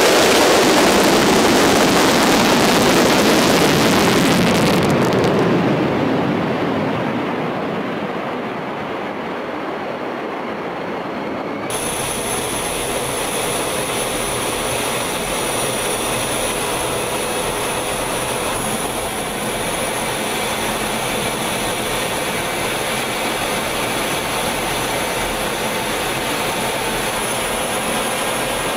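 F-15E Strike Eagle taking off on afterburner: a loud jet roar that fades away over several seconds as the jet passes and climbs out. About twelve seconds in it cuts abruptly to a steady rush of jet engine and wind noise with a thin high whine, recorded in flight alongside the aircraft.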